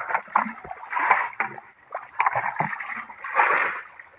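Shallow muddy water splashing and sloshing in several irregular bursts as a person wades through it.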